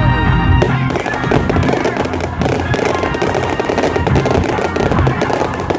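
Fireworks crackling rapidly and densely from about half a second in, over music with a steady bass line.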